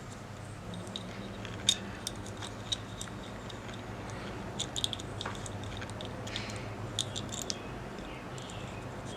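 Scattered small clicks and taps of tools and metal parts being handled while fitting clutch and brake parts to a bicycle handlebar, with one sharper click a couple of seconds in, over a steady low hum.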